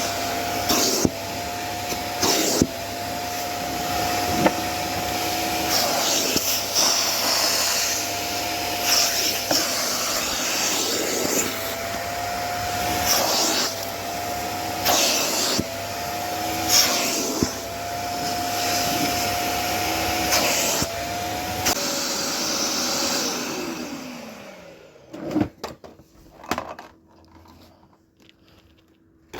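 VEVOR wet/dry shop vacuum running steadily, vacuuming upholstery, with many short clicks and rattles as the nozzle works. The motor's pitch wavers and dips briefly again and again. About 22 seconds in the motor is switched off and winds down with a falling whine, followed by a few knocks.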